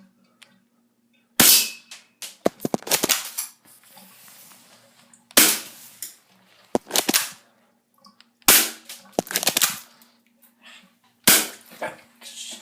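Airsoft gun firing single shots at a cockroach: four sharp cracks about three to four seconds apart, each followed by a short rattle of smaller hits.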